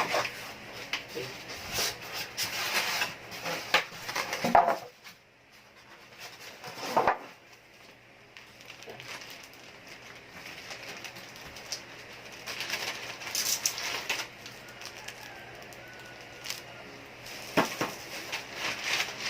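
Irregular rustling, scraping and soft knocks of cardboard and plastic packaging being handled as a boxed TV is unpacked.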